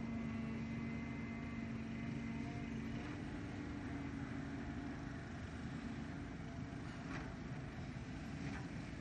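Volvo EC290B LC excavator's diesel engine running steadily under load as the machine digs and swings, with a held tone in the first three seconds and a couple of faint knocks near the end.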